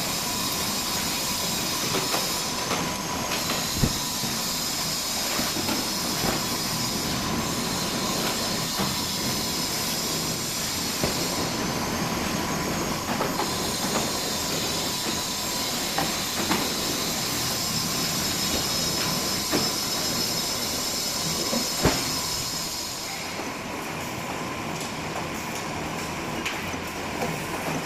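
Veneer core builder machine running as veneer sheets are fed through: a steady mechanical clatter with a high hiss and hum, and occasional sharp clicks. The sound drops a little and changes about three quarters of the way through.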